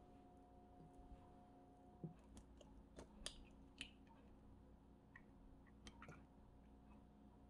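Faint, scattered clicks of eggshell as an egg is cracked and separated over a glass jug, heard against near-silent room tone.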